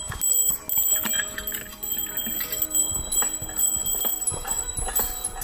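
Bells ringing in repeated strikes, their high ringing tones lingering between hits.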